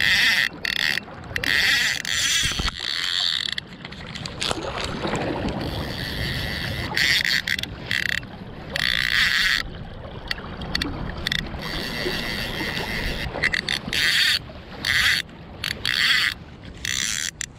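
Fly reel's ratchet drag buzzing in repeated bursts, stopping and starting many times, as a hooked fish pulls line off. Running river water rushes underneath.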